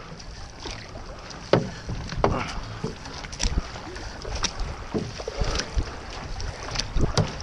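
Paddles of a six-person outrigger canoe (OC6) catching and pulling through the water, with irregular splashes about once a second over the water's wash along the hull.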